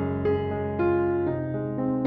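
Background piano music, soft notes struck roughly every half second.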